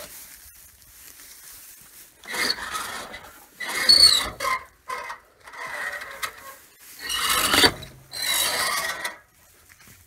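Old, rusty sawmill log carriage being pushed along its track: about five grating strokes of metal rubbing on metal, with a short squeal in the middle.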